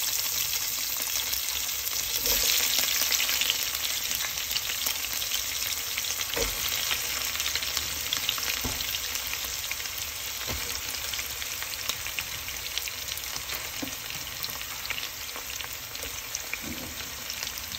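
Sliced onions sizzling steadily in hot mustard oil in a pot, the sizzle easing slightly over time, with a few scattered knocks of a utensil stirring them.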